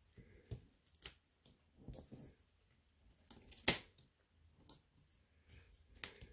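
Foam adhesive dimensionals being peeled off their backing sheet and pressed onto a cardstock layer, with handling of the paper. It comes as a few scattered quiet clicks and rustles, the sharpest a little before four seconds in.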